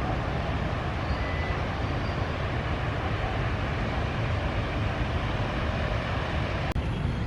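Steady outdoor background noise with a heavy low rumble, and a brief break near the end.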